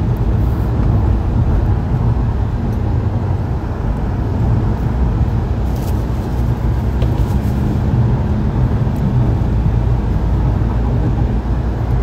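Steady low rumble of engine and road noise heard from inside a vehicle's passenger cabin.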